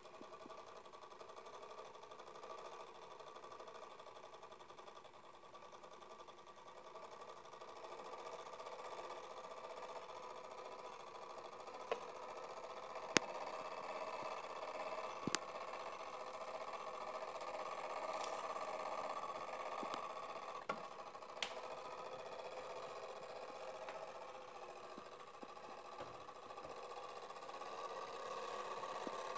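Spring-driven clockwork movement of an antique fly trap running with a steady whir, growing louder toward the middle. A few sharp clicks around the middle.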